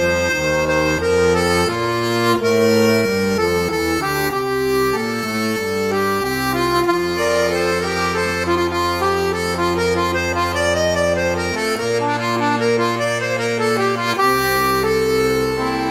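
Accordion music: a melody over long held bass notes, the bass dropping out for a couple of seconds near the end before coming back.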